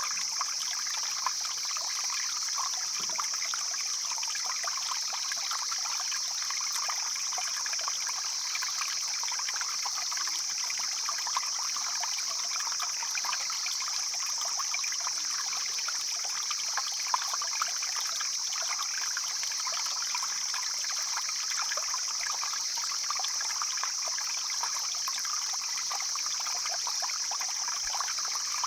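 Mountain stream flowing steadily, water splashing and trickling over stones, with a steady high-pitched hiss above it.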